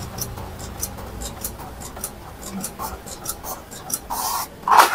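Epson L121 inkjet printer printing a test page, its mechanism giving a run of quick ticks and clicks, with a louder paper rustle near the end as the printed sheet comes out. This is a single sheet feeding properly after a repair of its fault of pulling several sheets at once.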